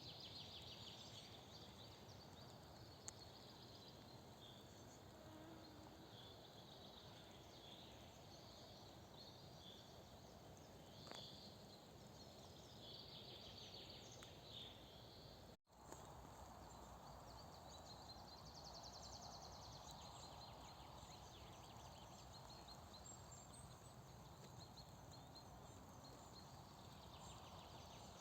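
Faint birdsong: small woodland birds chirping and trilling over a steady background hiss, with a brief dropout about halfway through.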